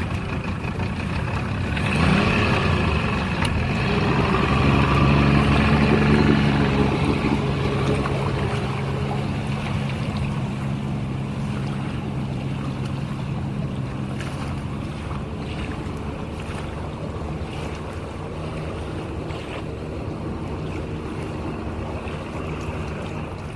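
A steady engine-like hum over a rushing noise, loudest around five seconds in, then slowly fading.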